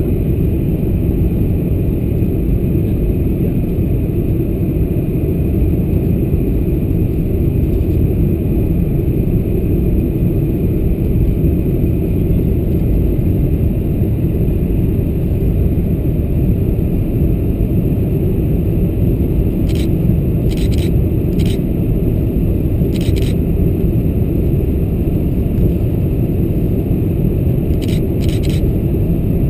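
Steady roar of a Boeing 747-400's cabin on final approach, its engines and the airflow over the extended flaps. A few brief faint clicks sound in the last third.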